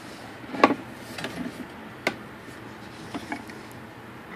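A few sharp, irregularly spaced knocks and clicks of handling noise as the wooden clock case is handled and filmed, the loudest knock near the end.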